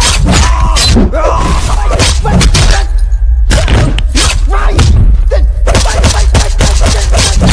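Fight-scene sound effects over a steady, heavy bass: a rapid run of punch thuds and smashing hits.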